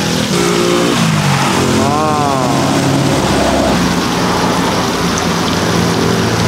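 Hot oil in a deep-fryer pot sizzling steadily as batches of chicken fry, with a steady low hum underneath.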